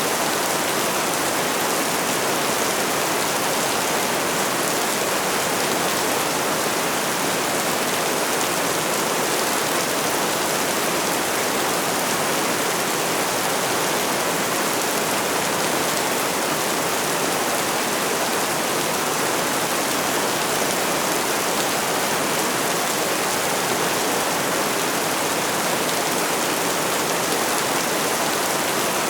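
Steady, even rainfall: a dense hiss of rain with no single drops standing out.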